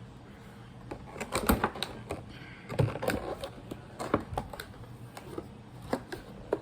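Irregular clicks and taps of hands working at a doll's box packaging, trying to get the doll out.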